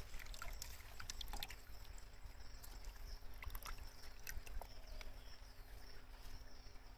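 Faint splashing and dripping of water in a plastic tub as a hand net is lifted out. Scattered small drips and ticks sound over a low rumble.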